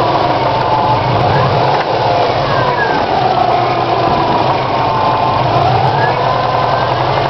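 A 2002 Subaru WRX's turbocharged flat-four engine running at a steady idle with a knock that the owner suspects is a bent valve. A fainter whine drifts slowly up and down in pitch over it.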